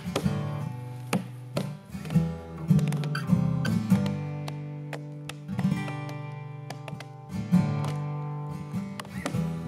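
Background music: a strummed acoustic guitar playing a steady, rhythmic tune.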